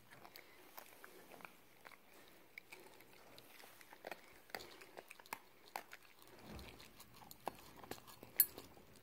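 A cocker spaniel chewing a treat: a run of small, irregular crunching clicks, with one sharper click near the end.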